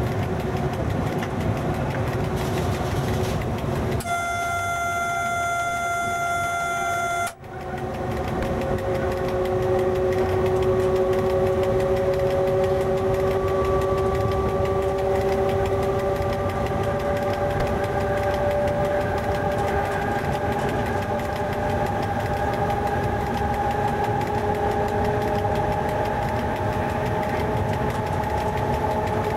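Cab noise of an FS E.656 electric locomotive under way, with a steady rumble and whine. Near the start a single-pitched horn sounds for about three seconds. The sound then briefly cuts out, and after that the whine of the traction motors rises slowly in pitch as the train picks up speed.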